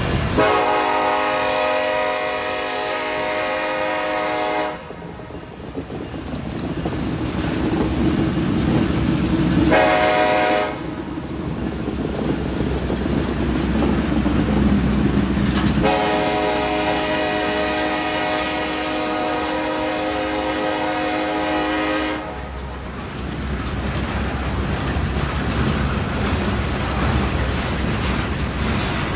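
Freight train rolling past with a steady rumble and wheel clatter. A diesel locomotive's multi-chime air horn sounds three times over it: a long blast at the start, a short one about ten seconds in, and another long blast from about sixteen seconds in.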